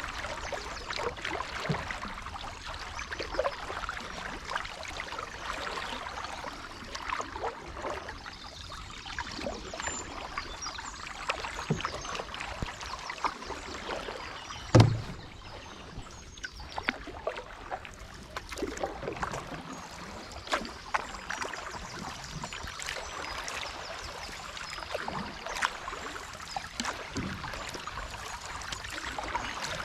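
Canoe paddles dipping and pulling through river water, with splashing and trickling from the strokes. There is one sharp knock about fifteen seconds in.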